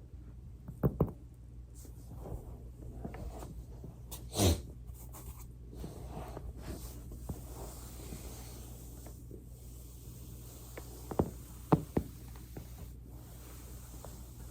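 Joint cracks during foam rolling: a pair of sharp pops about a second in, a louder pop a few seconds later and three more near the end, with soft rubbing against the roller between them.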